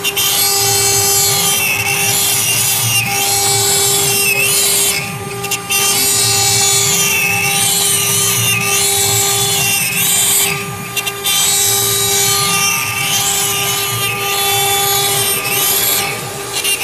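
Mini CNC router's spindle running with a steady whine while the bit engraves wood, the cutting hiss dropping out briefly three times, with warbling tones rising and falling over it.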